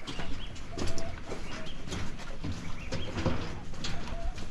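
Birds giving short repeated calls, over irregular footsteps knocking on a steel mesh pontoon.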